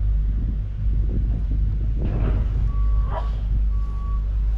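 A vehicle's reversing alarm beeping, one steady tone repeated about once a second, starting a little past halfway, over a steady low rumble. A brief noisy burst comes just before the beeping starts.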